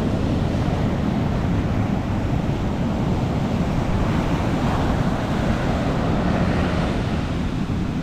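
Ocean surf breaking and washing up a sandy beach: a steady, continuous rush of waves.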